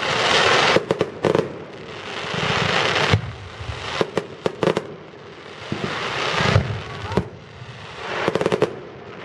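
Fireworks going off: several rising comets and shells, each heard as a hiss about a second long, with sharp bangs and crackling bursts coming between and after them.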